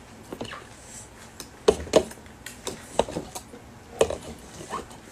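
Spoon clinking and knocking against a bowl while eating meatball soup: a handful of short, irregular knocks, loudest about two seconds in.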